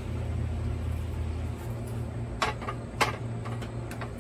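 A large carved wooden owl being set into the jaws of a Rockwell Jaw Horse: two sharp knocks about two and a half and three seconds in, the second the loudest, then a few lighter taps, over a steady low hum.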